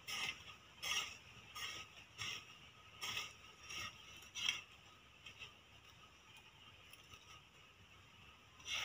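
Hand hoe scraping and chopping into dry soil in short repeated strokes, about one every 0.7 seconds. The strokes stop for a few seconds about halfway through and start again near the end.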